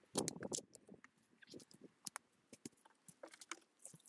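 Faint, irregular wet pats and small clicks of wet mud being scooped and slapped onto rifles.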